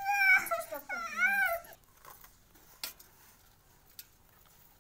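A young child whining and wailing: a few high-pitched, drawn-out cries that rise and fall, stopping about a second and a half in, followed by a couple of faint clicks.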